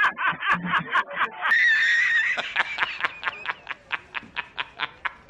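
A person laughing hard in quick rhythmic bursts, rising to a high-pitched held squeal about a second and a half in, then trailing off in short fading gasps of laughter.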